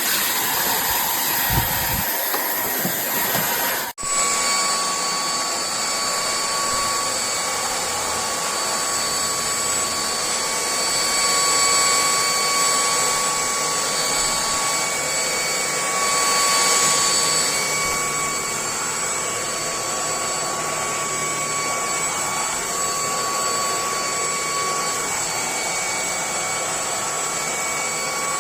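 Cordless stick vacuum's brushless motor running with a steady high whine over rushing air. It cuts out abruptly for a moment about four seconds in, then runs on with a slightly higher whine that swells a little twice.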